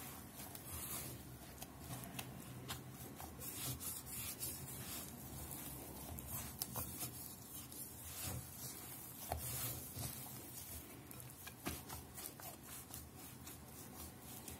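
A hand kneading soft, floury poğaça dough in a glass bowl: faint, irregular rubbing and pressing with short soft knocks.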